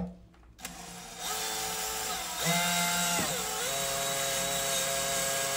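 Cordless drill running as it drives a bolt home. Its motor whine starts about half a second in and speeds up about two seconds in. The pitch dips briefly about three seconds in and recovers, then holds steady.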